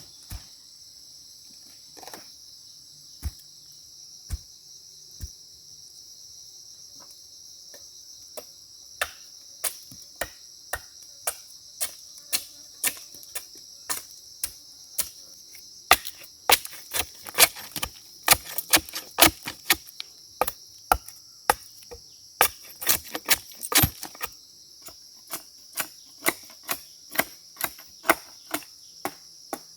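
Sharp knocks or taps, a few scattered at first, then coming about twice a second from roughly nine seconds in and loudest in the middle stretch. Under them runs a steady high chirring of crickets.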